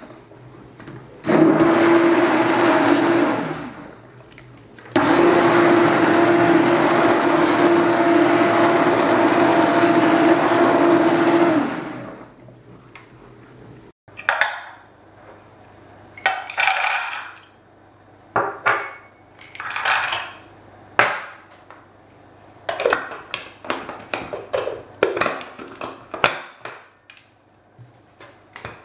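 600 W Bosch ErgoMixx MSM66150 hand blender motor running in a pot of soup: a short run of about two seconds, a pause, then a steady run of about seven seconds that stops about twelve seconds in. In the second half, short plastic clicks and knocks as the chopper bowl, blade and lid are handled and fitted together.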